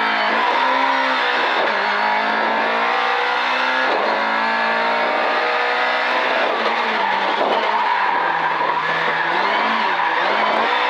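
Race car engine heard from inside the cabin, revving hard with the pitch climbing and then dropping sharply at each gear change, about three times. The revs fall and waver in the last few seconds. A steady high whine and road noise run underneath.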